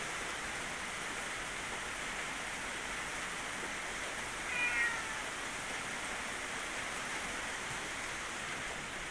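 A tabby house cat meows once, briefly, about halfway through, over a steady hiss.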